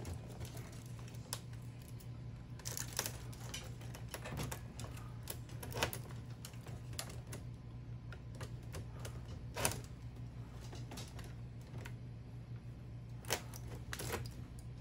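Faint, irregular clicks and ticks of wires and a thin metal rod being pushed through a hole in a plastic robot leg, with a few sharper knocks, over a steady low hum.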